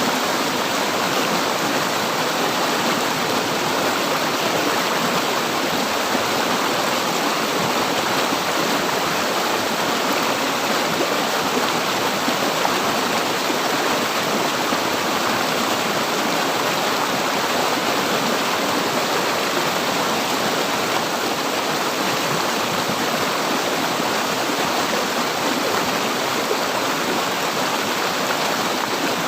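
River water flowing and rushing steadily, an even unbroken wash of water noise.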